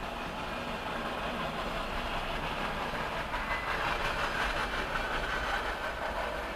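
Freight train cars rolling past: a steady rumble of steel wheels on rail with clickety-clack, swelling in the middle and easing near the end.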